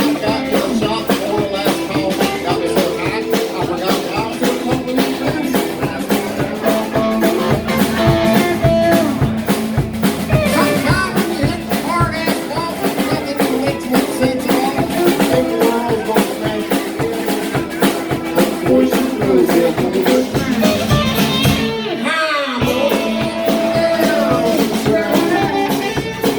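Live rock band playing: drum kit and electric guitar at a steady beat, with a brief break in the bass and drums near the end before the band comes back in.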